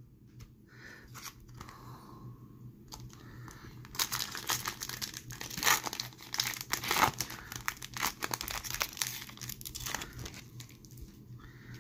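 Foil trading-card pack being torn open and crinkled in the hands as the cards are slid out. A few faint handling clicks come first, then about four seconds in a dense run of crinkling and tearing lasts several seconds before it dies down near the end.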